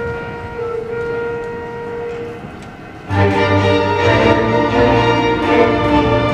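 A youth orchestra improvising a soundpainting piece. At first a few instruments hold quiet, long notes. About three seconds in, the whole ensemble comes in at once, loud, with bowed strings and low bass notes sustaining a thick chord.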